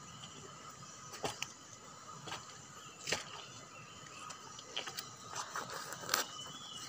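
Handling noise: scattered sharp clicks and rustles, roughly one a second, over a steady background hiss of outdoor ambience.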